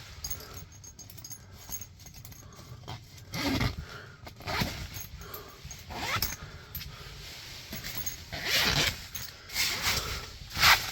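Rooftop tent fabric being handled from inside: rustling and zippers pulled in several short, irregular strokes as a window flap is opened, the last stroke the loudest.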